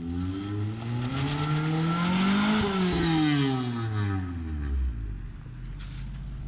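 1997 Honda Civic's four-cylinder engine through a freshly installed Apexi WS2 muffler, revved once from idle: the pitch climbs for about two and a half seconds, then falls back and settles to a steady idle.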